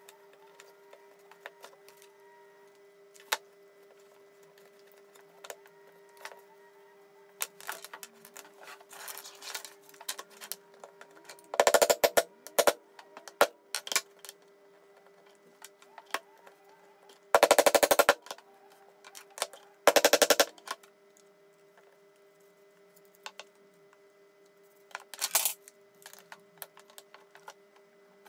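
Hands working small wooden craft parts on a cutting mat: scattered clicks and taps, with three loud rapid rattling bursts about twelve, eighteen and twenty seconds in, over a faint steady hum.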